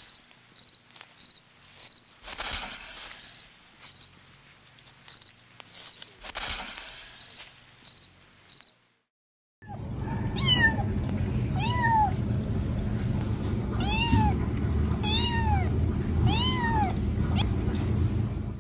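Kittens meowing, edited together from two clips. First there are a few loud sharp cries along with a high chirp repeating about twice a second. After a short silent break, a kitten mews repeatedly with rising-and-falling cries over a low rumble.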